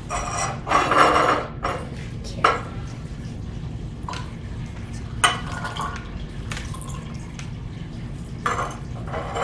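Glass graduated cylinders and beakers clinking against each other and the tabletop, several separate knocks, with borax solution being poured into polyvinyl alcohol solution.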